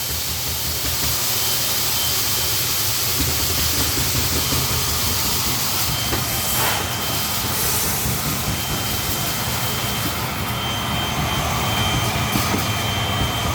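Automatic coffee-bean weighing and packaging machine running on a test run: a steady mechanical hum with hiss and a thin high whine, and a short burst of hiss about six and a half seconds in.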